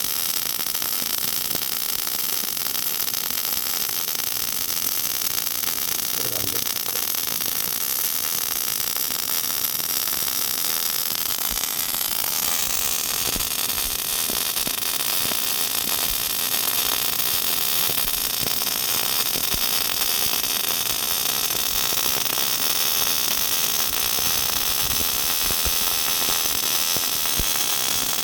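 MIG robot welder's arc running steadily: a continuous high hiss with fine crackle and faint machine whine, with a brief change in the hiss about twelve seconds in.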